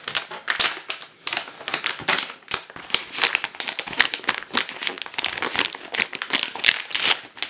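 Clear plastic packaging crinkling and rustling densely as a tablet folio cover is handled and pulled out of its plastic bag.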